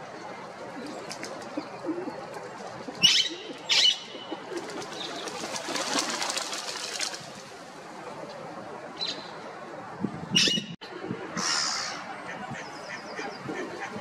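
Black-headed gulls calling close by: two loud, short calls about three seconds in, then a faint one and two more loud calls between about nine and twelve seconds.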